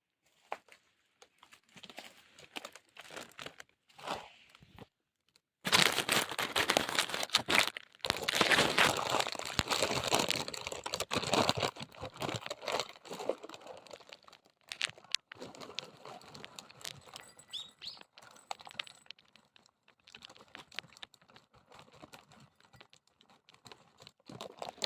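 Cat food being got ready: packaging crinkling with a rapid run of small clicks, loudest and densest from about six to fourteen seconds in, with sparser handling clicks before and after.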